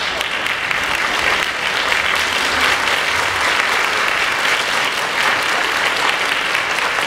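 Audience applauding, a steady, dense clapping of many hands that holds at an even level throughout.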